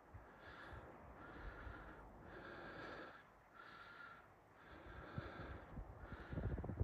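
Faint, heavy breathing of a person walking, in quick regular breaths. Low rumbles of wind on the microphone grow stronger near the end.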